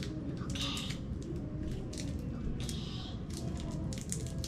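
Small toy packaging being picked at and opened by hand: scattered light clicks and crinkles, with two brief rustles, about a second in and about three seconds in.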